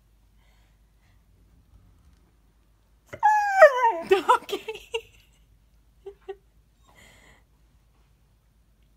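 Siberian husky letting out a loud, wavering whine about three seconds in that slides down in pitch over about two seconds, followed by two brief faint whimpers.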